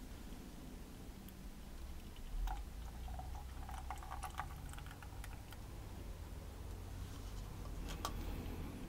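Faint scattered clicks and taps of plastic cups being handled while acrylic paint is poured from one cup into another, with a soft knock about two and a half seconds in.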